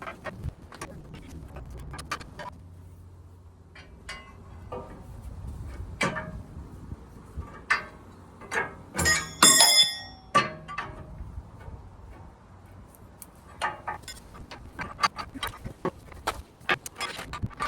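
Metal clinks and knocks from hand work on the generator's parts, scattered sharp ticks throughout. About nine to ten seconds in comes a quick run of loud clangs that ring on.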